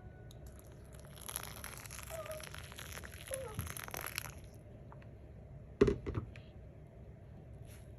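Faint rustling and crinkling, as of something being handled, for about three seconds, followed by a brief double knock about six seconds in.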